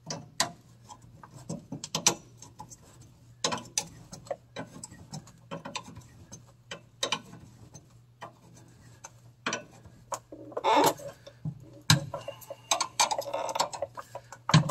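Small irregular metallic clicks and clinks of a wrench working the threaded adjusting nut on a parking brake cable held with locking pliers, with a few louder clatters near the end.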